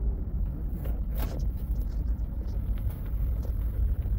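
Passenger train running, a steady low rumble heard from inside the carriage, with a faint click or rattle about a second in.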